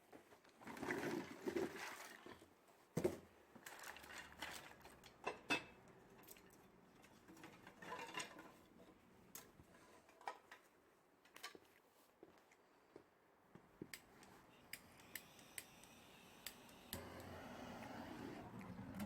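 Scattered light clicks, knocks and metallic clinks from handling the metal rocket stove and its parts while getting a fire going, with a faint steady rushing noise building near the end.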